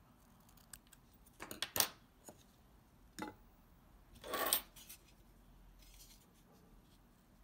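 Small metal scissors snipping through ribbon, a few sharp snips about a second and a half in and another around three seconds. A short, louder clatter of objects handled on a wooden tabletop follows a little after four seconds.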